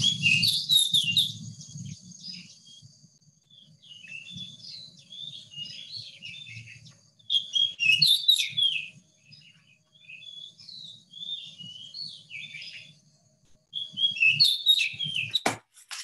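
Recorded song of an oriental magpie-robin being played back: a long run of varied, sweet whistled phrases. The loudest come near the start, about halfway through and shortly before the end, with softer phrases between, and the playback stops with a click near the end.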